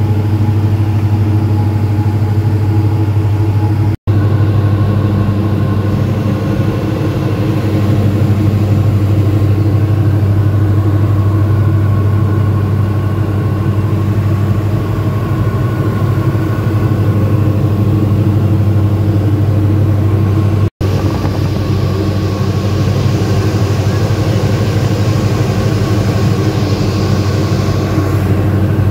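Steady drone of a Diamond DA42 Twin Star's two propeller engines in flight, heard inside the cabin: a deep hum with overtones above it. It cuts out for an instant twice, about four seconds in and again about two-thirds of the way through.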